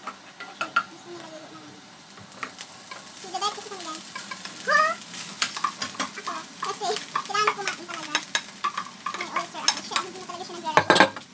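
Rice sizzling in a hot frying pan on a gas burner, with a spatula scraping and tapping against the pan and the rice-cooker pot as cooked rice is scooped in and stirred. A sharper knock comes near the end.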